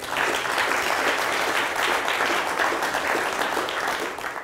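Lecture-hall audience applauding, a dense steady patter of many hands clapping that begins sharply and starts to fade near the end.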